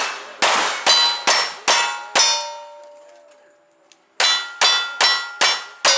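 Rapid gunshots striking steel plate targets in cowboy action shooting, each hit followed by the metallic ring of the plate. About six shots come roughly two a second, then a pause of about a second and a half while the last plate rings on, then five more shots in quick succession.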